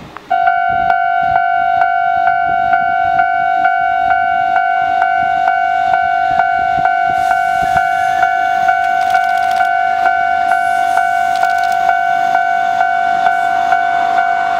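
A Japanese railway level-crossing alarm starts suddenly and rings steadily: one high tone struck about twice a second, warning of an approaching train. Under it, near the end, the electric train's approach rises faintly.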